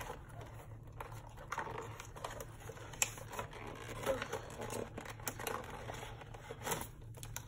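Plastic blister toy packaging crinkling and crackling in the hands as it is pulled open: a run of irregular small clicks and rustles.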